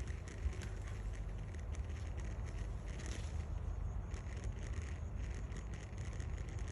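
Steady low rumble with many faint scattered clicks and rustles.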